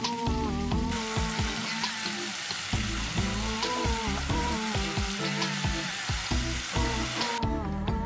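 Slices of meat sizzling as they fry in a grill pan, a dense hiss that cuts off abruptly near the end, over soft background music.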